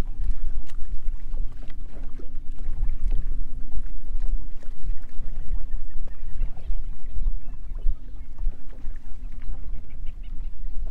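Wind buffeting the microphone and choppy water lapping against a bass boat's hull, with the steady hum of the bow-mounted electric trolling motor under it and small splashes and ticks here and there.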